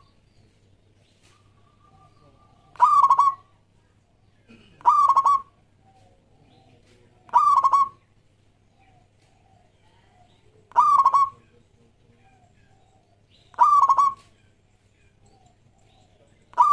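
Zebra dove (perkutut) singing its stuttering coo: short calls of about half a second made of rapid trilled notes, repeated every two to three seconds, five in all, with a sixth starting at the very end.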